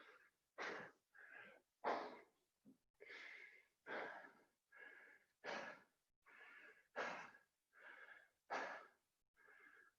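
Faint, hard, rapid breathing from exertion after burpees, about one breath a second, many breaths carrying a slight wheezy whistle.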